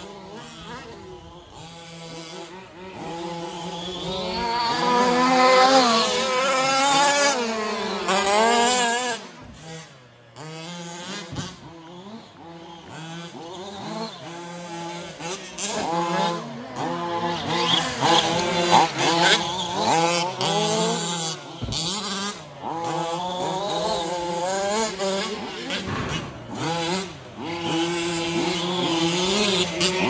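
Several 1/5-scale 4WD RC trucks' small two-stroke petrol engines revving up and down as they race, their pitches overlapping. They grow loud a few seconds in as trucks pass close, drop back briefly, then build again through the second half.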